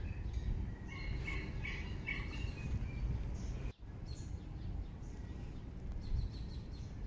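Small birds chirping in short, scattered calls over a steady low outdoor rumble, with a brief dropout about halfway through.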